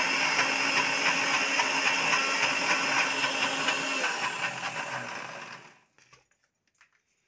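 Electric mixer grinder running steadily as it grinds soaked rice into idli batter. About four seconds in it is switched off and the motor winds down, going quiet a couple of seconds later, followed by a few faint clicks.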